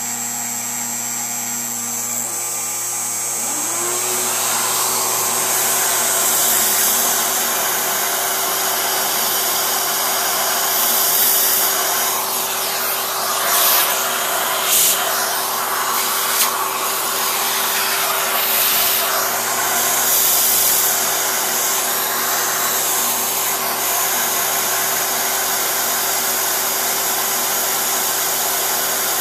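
Milling spindle with a small end mill cutting a clear plastic block, with a vacuum hose pulling away the chips: a steady whine over a rushing noise. A motor winds up to speed about three seconds in, and the cut gets louder in irregular bursts between about 12 and 21 seconds.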